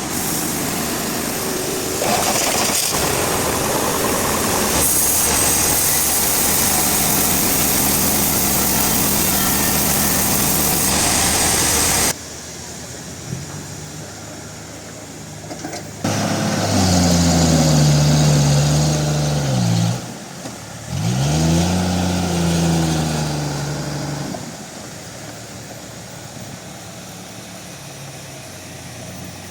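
Machinery running. A loud, steady, noisy roar cuts off abruptly about twelve seconds in. Later an engine-like drone rises and sags in pitch, drops out briefly and comes back before fading.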